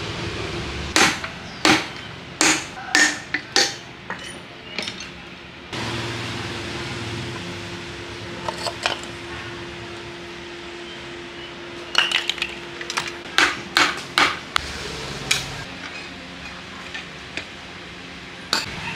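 Sharp metallic knocks and clinks of hand tools working on a small electric water pump's metal housing and impeller during disassembly: a quick run of knocks in the first few seconds, another cluster about twelve to fifteen seconds in. A faint steady hum runs between them.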